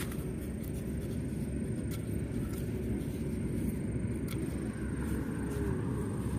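Steady low outdoor rumble, with a few faint clicks and scrapes as a damaged metal phone frame is picked up off the sand.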